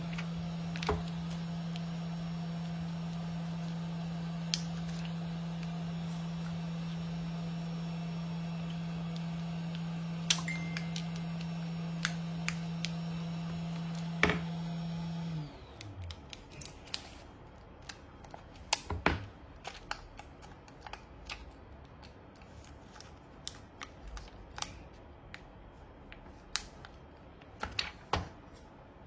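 A steady low machine hum runs for about fifteen seconds, then stops with a brief drop in pitch, as if a small motor is switched off and winds down. Scattered clicks and knocks run throughout, a few of them louder in the second half.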